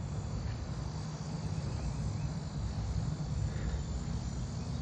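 Steady high insect chorus, like crickets, over a low steady rumble.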